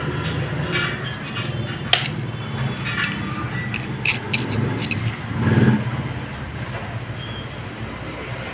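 Light metal clicks and clinks of a hand tool against an opened motorcycle cylinder head and cam chain: a sharp click about two seconds in, a few lighter clinks around four seconds, and a louder scrape or rattle a little later. A steady low hum runs underneath.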